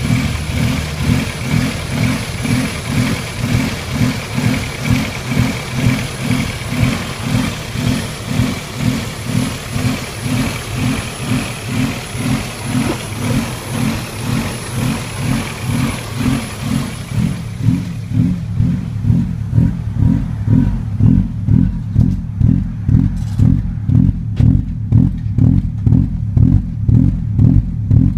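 A 16-valve car engine idles roughly, its sound rising and falling in an even pulse about twice a second: the idle surge. Partway through, a high thin whine and hiss drop away, leaving the pulsing engine note clearer.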